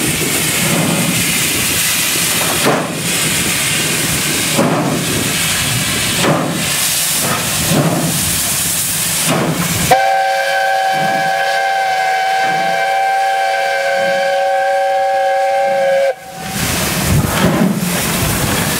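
South African Railways Class 15CA steam locomotive No. 2056 starting a heavy train on a gradient with its sanders not working: hissing steam and slow, heavy exhaust beats that gradually quicken. About ten seconds in, its whistle sounds a steady chord for about six seconds and cuts off sharply, and the exhaust beats come back faster.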